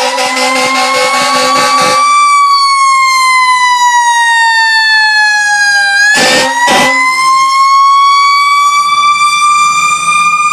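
Fire truck siren wailing: its pitch rises, falls slowly over about four seconds, then rises again. A horn sounds with it until about two seconds in, and two short horn blasts come about six seconds in.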